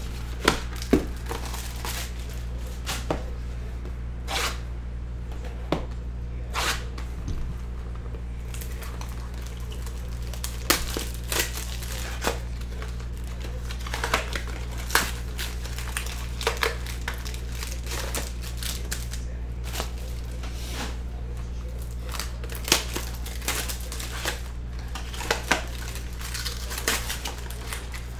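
Hands unwrapping a sealed trading-card box: cellophane crinkling, with cardboard and paper pack wrappers being torn open, in a run of short sharp crackles and rips over a steady low hum.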